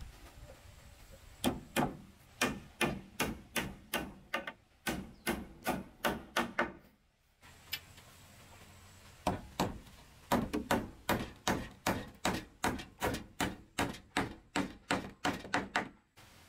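Claw hammer striking a wooden cabinet frame in a steady run of blows, about two to three a second. There is a short break near the middle, and then the blows resume slightly faster.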